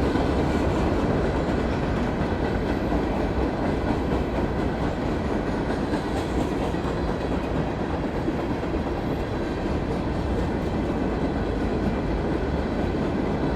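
Empty CSX coal train's hopper cars passing close by, a steady, loud noise of steel wheels running on the rails, at roughly 50 mph.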